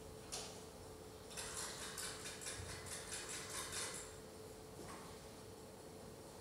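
Quick, light metallic clicking, about five clicks a second for a couple of seconds, from hands working small metal parts at the engine of a vintage BMW R42 motorcycle; the engine is not running.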